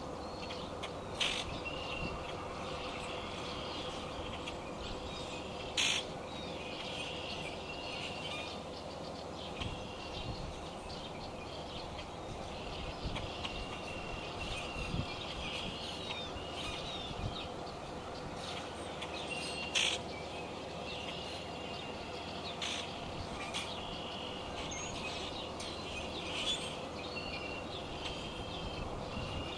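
Steady hiss of a rain shower with small birds chirping repeatedly in short calls, and a few sharp clicks.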